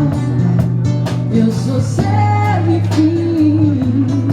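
Pop song playing with guitar over a steady bass line. A held melody note rings out about two seconds in.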